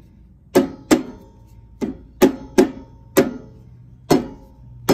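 Hammer blows on a tow dolly's metal wheel-hub grease cap, about eight sharp taps at an uneven pace, each with a short metallic ring, driving the cap off the hub.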